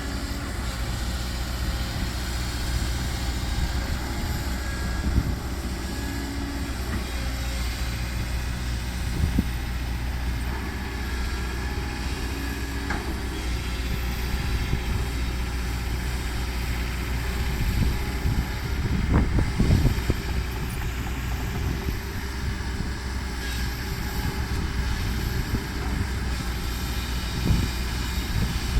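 Heavy diesel engine running steadily at a construction site, with a few short knocks and clunks, the loudest cluster about two-thirds of the way through.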